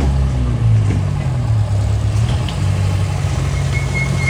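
Rally car engine running at low, fairly even revs with a deep, steady note.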